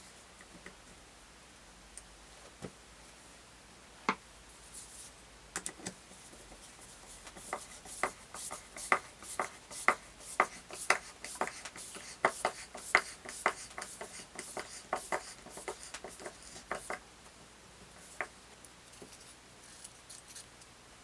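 Irregular series of sharp light clicks and taps, about two a second at their busiest, thinning out near the end.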